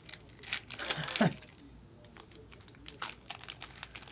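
Trading card pack wrapper crinkling and tearing open, loudest for about a second near the start, with a brief falling squeak at the end of the tear. Small clicks and taps of cards being handled follow.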